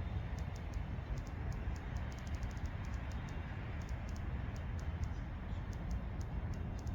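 Irregular high-pitched clicks, sometimes single and sometimes in quick runs, over a steady low rumble. The uploader takes the clicking for Morse code picked up by the phone.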